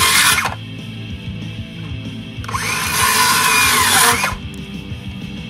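Cordless circular saw cutting through a weathered 4x4 wooden post in two passes: the first cut ends about half a second in, and the second runs from about two and a half to four seconds in, its whine rising as the blade spins up and dropping as it winds down. Background music plays underneath.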